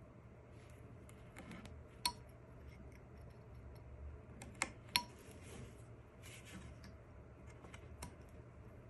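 Carving knife cutting small shavings from a hard-to-carve wooden hiking stick: faint scraping strokes with a few sharp clicks, one about two seconds in and two close together around five seconds in.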